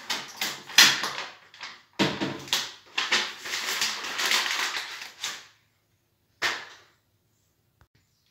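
A paper sign peeled off a whiteboard and crumpled up in the hands: crackling crunches for about five seconds, then one more short crunch near six and a half seconds.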